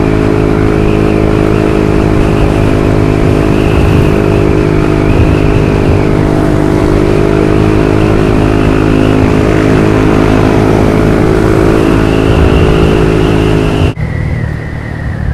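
Yamaha NMAX 155 scooter's single-cylinder engine running steadily while riding at a constant speed. The sound changes abruptly and drops a little about 14 seconds in.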